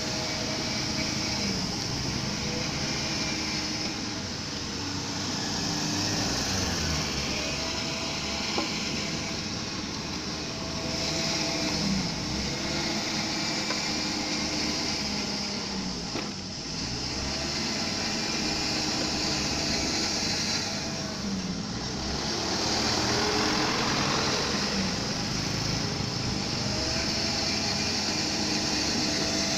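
Diesel engine of heavy construction machinery, an excavator or dump truck, running under changing load, its engine speed rising and falling again and again.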